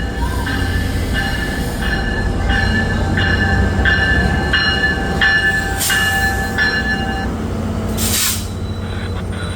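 Tri-Rail train's locomotive bell ringing, one stroke about every 0.7 s, over the diesel's steady low running; the bell stops about seven seconds in. A short burst of air hiss follows near the end.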